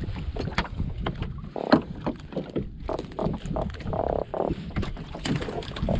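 Wind buffeting the microphone and water against the side of a small fishing boat, with irregular knocks and rustling as a gillnet is pulled by hand over the gunwale and fish are picked from it. Two brief low hums come about one and a half and four seconds in.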